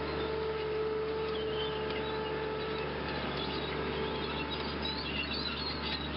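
Small birds chirping in short high notes over a steady low rumble, with a faint steady tone under it for about the first three seconds.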